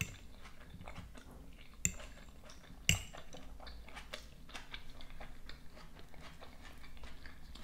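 Close-miked chewing of a mouthful of salad with iceberg lettuce, cucumber and avocado, with small wet mouth clicks throughout. A metal fork clicks sharply against a ceramic plate twice, about two and three seconds in.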